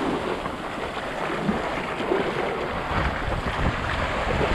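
Ocean surf washing on a beach, with wind rumbling on the microphone.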